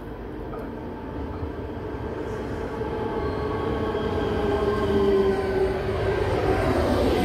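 ČD class 471 CityElefant double-deck electric train running in along the platform and past close by, its rumble growing steadily louder. Over the rumble is a whine made of several tones that slowly fall in pitch.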